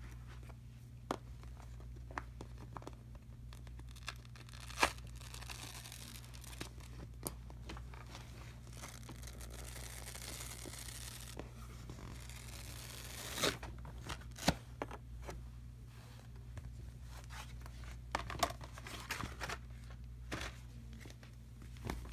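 Cardboard packaging sleeve being handled and pulled off a packaged shower curtain, with a long tearing, rustling sound from about five to thirteen seconds in. Scattered snaps and clicks of card come before and after it, the loudest just after the rustle ends. A steady low hum runs underneath.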